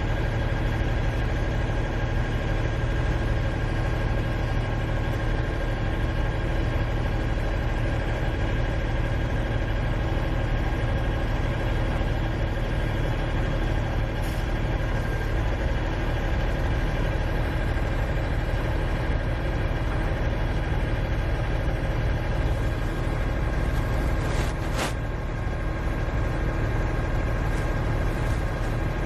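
Heavy earthmoving machinery engines running steadily, a low, even engine hum, with a couple of brief clicks late on.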